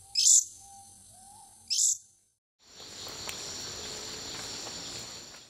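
Two song notes of a long-billed hermit hummingbird, each a short, high-pitched warbled note, played at half speed about a second and a half apart. After a brief gap, a steady high-pitched hiss runs for about three seconds.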